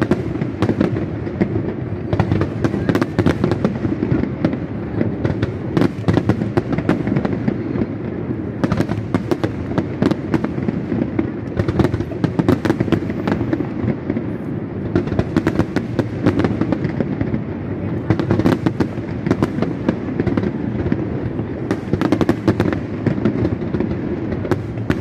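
Aerial fireworks display: a dense, rapid barrage of shell bursts and crackles, many per second, over a continuous low rumble.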